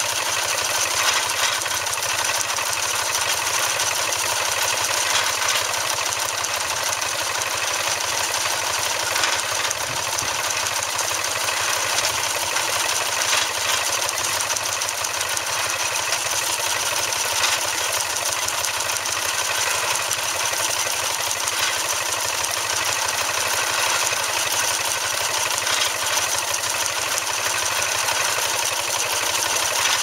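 Steam engine running, driving an antique straw baler through a long flat belt: steady machine noise with faint, irregular knocks.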